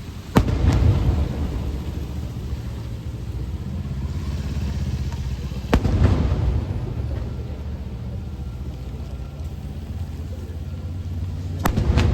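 Aerial firework shells bursting: a pair of sharp bangs near the start, one about six seconds in and another pair near the end, each trailing off in a long low rolling rumble.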